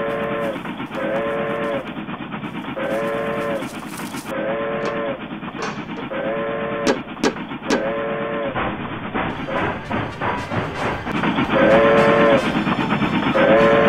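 Dubbed-in steam locomotive sound effect: short whistle-like toots, about one a second, with a few sharp clanks in the middle. The toots pause for a few seconds near the end, then come twice more.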